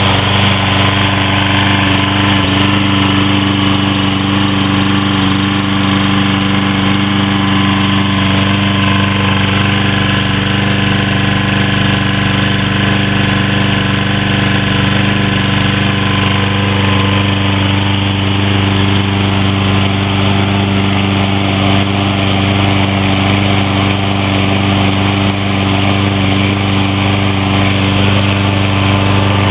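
Briggs & Stratton 190 cc single-cylinder mower engine on a Troy Bilt 21-inch push mower, running steadily and evenly after a no-choke Ready Start.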